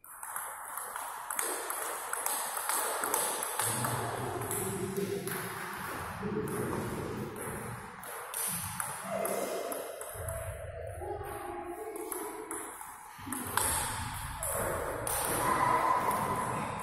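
Table tennis rallies: the ball clicking quickly back and forth off the bats and the table in runs of strokes, with a pause between points. Voices sound in the hall underneath.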